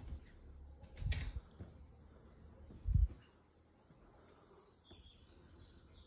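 A few short, high bird chirps over quiet outdoor background, with two low bumps of noise on the phone's microphone about one and three seconds in.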